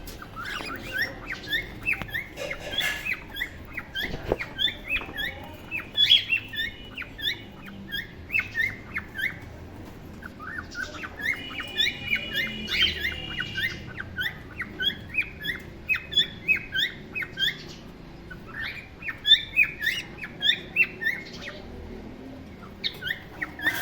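A colony of cockatiels calling without a break: many short, rising chirps overlapping one another, with a few longer whistled notes about halfway through.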